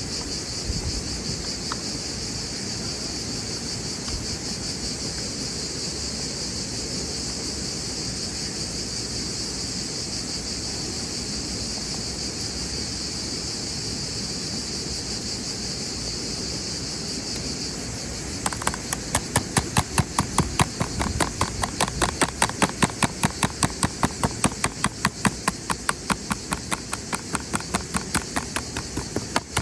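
Insects, crickets or cicadas, buzzing steadily and high. About eighteen seconds in, a fast, regular ticking of sharp clicks sets in, a few per second, louder than the buzz.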